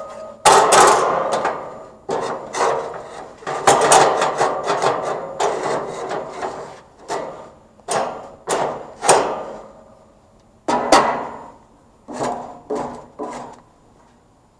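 Barbecue grill being scraped clean in over a dozen separate strokes with a slight ring, the strokes spacing out and stopping near the end.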